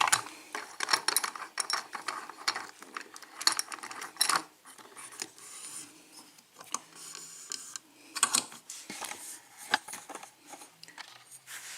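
Irregular metallic clicks, taps and short scrapes as a lock is handled and clamped into a vise.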